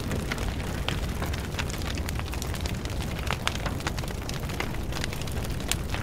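Fire sound effect: a steady low roar of flames with many scattered crackles and pops.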